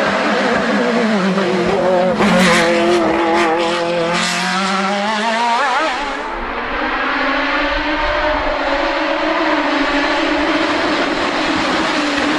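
Sports-prototype race car engines revving hard up a hill climb, rising in pitch and dropping back at quick gear changes. A few sharp cracks come between about two and four seconds in.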